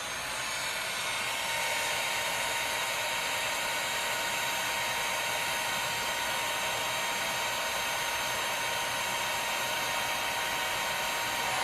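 Heat gun running steadily: an even rush of blowing air with a faint steady whine, warming hardened phone-repair adhesive until it softens and flows.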